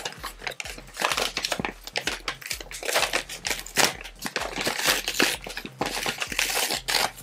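Brown kraft-paper wrapping crinkling and crackling in irregular bursts as a parcel is handled and its tape peeled off.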